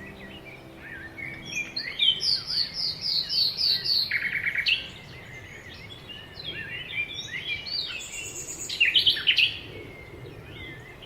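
Several birds singing and calling, with high chirps and whistles, including a quick run of about seven repeated notes and another flurry of calls near the end.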